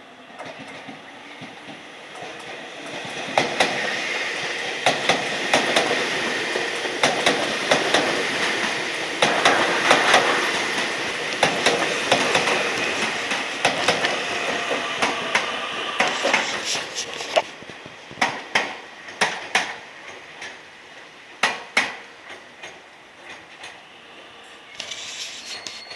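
Keio Inokashira Line electric train running past, its wheels clacking sharply over rail joints. The sound builds over the first few seconds and stays loud for about twelve seconds, then the clacks come further apart and fade.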